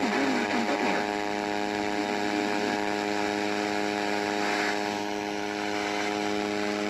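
Steady electrical buzzing hum on a radio's audio, unchanging throughout, with a faint voice under it in the first second.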